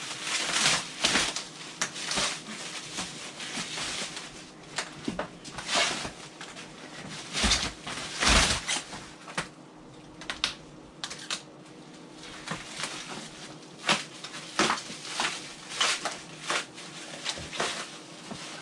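Plastic stretch wrap being pulled, crinkled and torn off flat-packed MDF panels, with cardboard packaging rustling: an irregular run of crackles and rips, loudest about eight seconds in.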